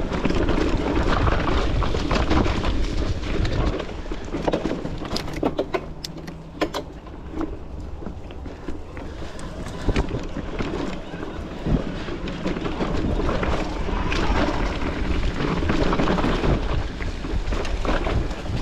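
Electric mountain bike ridden along a dirt trail: tyres rumbling over the ground and wind on the microphone, with sharp clicks and knocks as the bike rattles over bumps.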